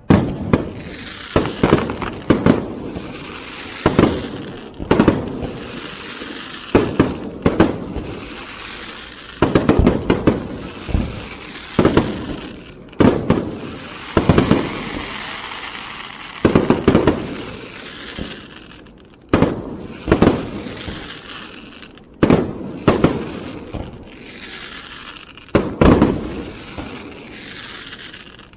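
Aerial fireworks shells bursting in a rapid barrage: sharp booms about one to two a second, each trailing off in a rolling echo, with crackling in between.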